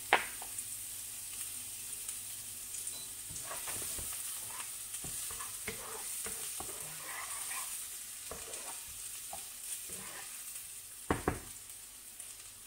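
Diced onion sizzling and crackling as it fries in oil in a nonstick frying pan, stirred with a wooden spoon. There is a sharp knock at the start and two loud knocks about eleven seconds in.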